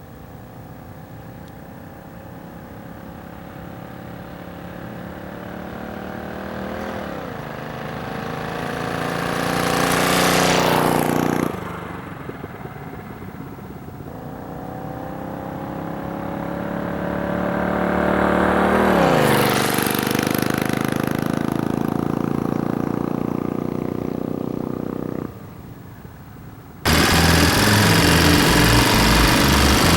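Motorized bicycle's 79cc engine driving past twice, growing louder as it approaches and dropping in pitch as it goes by each time. Near the end it cuts suddenly to the engine running loud and close.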